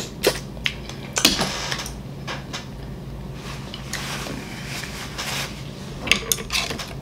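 Close-miked eating and handling sounds: a few sharp clicks in the first second and a half as a mussel is eaten, then a paper napkin rustling from about four to five and a half seconds in as hands are wiped, and a few more light clicks near the end, over a low steady hum.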